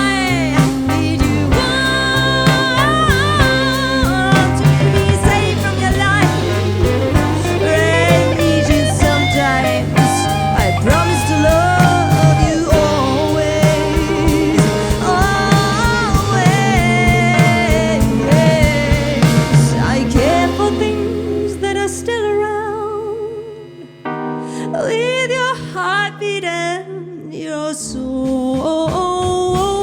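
Live band music: a singer-songwriter band of voices, keys, ukulele, bass guitar and drums playing a slow song, with sung lines but no clear words. About twenty seconds in the bass and drums drop away to a sparser, quieter passage, and the full band comes back in near the end.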